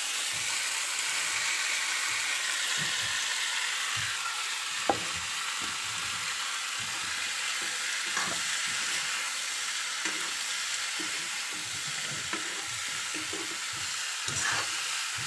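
Oil sizzling in a kadai as small green pulses and potato chunks fry, stirred with a steel spoon that scrapes and clinks against the pan a few times.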